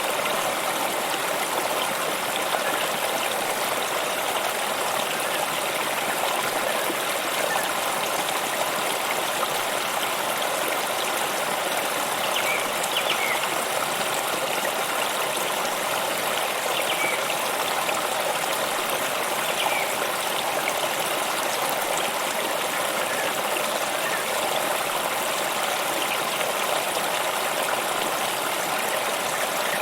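Steady rushing and trickling of a flowing stream, with a few faint short high chirps around the middle.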